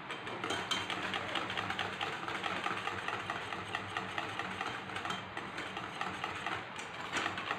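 Wire whisk beating a thickening sauce in a stainless-steel saucepan: a fast, steady rattle of rapid, even strokes of wire against the pan.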